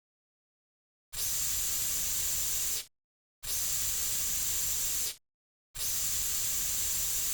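Narrow-nozzle aerosol cockroach insecticide spray can hissing in three steady bursts of just under two seconds each, with clean gaps between them.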